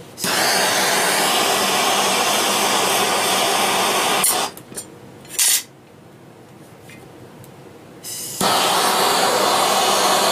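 Handheld propane torch flame hissing steadily as it heats a steel plate. The hiss stops after about four seconds, returns as one short burst about a second later, and starts again for the last two seconds.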